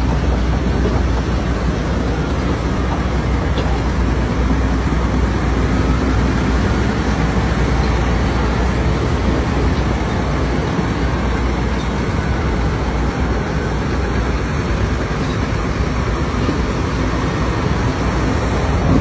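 Steady, loud low rumble of a heavy vehicle running.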